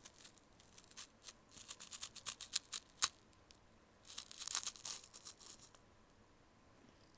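Crunching of an Umaibo puffed corn stick being bitten and chewed, picked up close to the mouth. Crisp crackles come about one to three seconds in, with one sharp crack near three seconds, then a dense burst of crunching from about four to six seconds.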